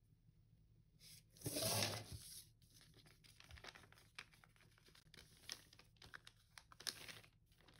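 Paper pattern rustling and crinkling as it is handled, with one louder rustle about a second and a half in, then light scattered rustles and taps.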